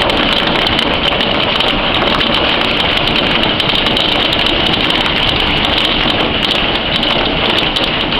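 Hail pelting a patio: a dense, steady clatter of countless small sharp impacts over a rushing, rain-like hiss.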